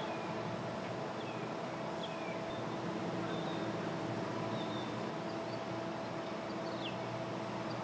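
A 40-foot sport fishing boat's engine idling as it moves slowly through the water: a steady hum with a held tone. Faint bird chirps sound above it now and then.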